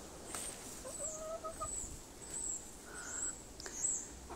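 Small birds chirping in a run of short, high chirps, with a chicken's lower drawn-out call about a second in.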